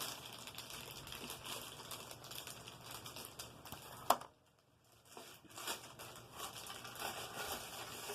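Plastic packaging crinkling and rustling as vacuum cleaner parts are unwrapped and handled, with one sharp click about four seconds in and a short lull after it.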